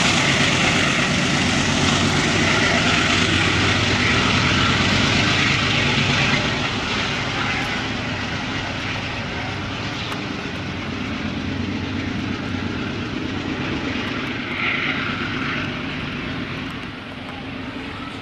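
Diesel freight locomotive engine running as the train passes, with a steady hiss of wheels on rail. The sound drops noticeably about six seconds in as the locomotive moves away.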